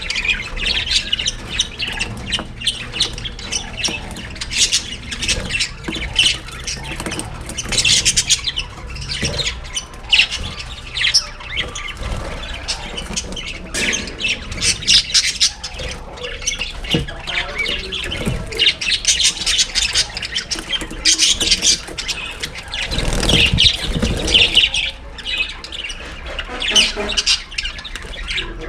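A large flock of about 28 budgerigars chattering, chirping and squawking together without a break, many short calls overlapping. The uploader reads such flock calling as rivalry and courtship between males and females, and plays it to birds to stimulate breeding.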